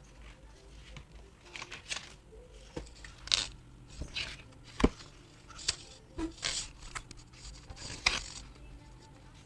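Handling of an album's paper and plastic packaging: intermittent rustling and crinkling, with scattered clicks and taps. The sharpest is a single knock about five seconds in.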